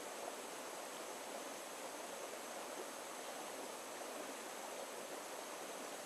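Shallow rocky stream flowing over stones and pebbles: a steady, even rush of water from small riffles.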